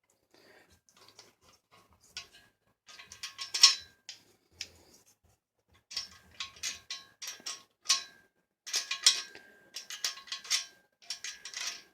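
Metal nut and bolt clicking and rattling in bursts as the nut is worked round on the bolt's threads, with a faint metallic ring after the louder clicks.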